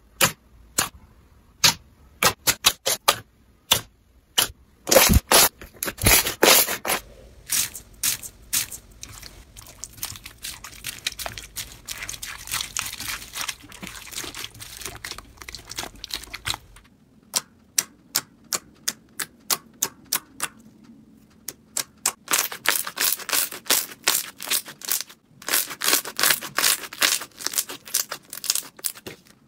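Hands squishing and pressing slime, giving a rapid run of sharp pops and clicks, thickening in places into dense crackling where the slime is packed with foam beads.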